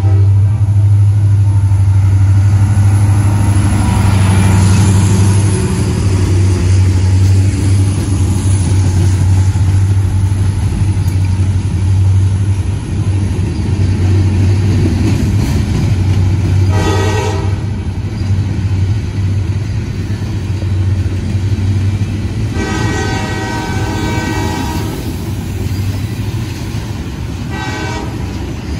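Diesel freight train rolling past close by: a steady low drone and rumble of the locomotives and freight cars over the rails. The locomotive horn sounds from down the line: a short blast about halfway through, a longer one a few seconds later and a brief one near the end.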